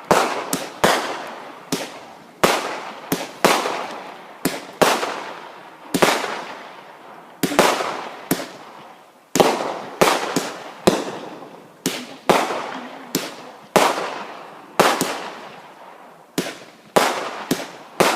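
Fireworks going off: a long, irregular series of sharp bangs, about one to two a second, each with an echoing tail.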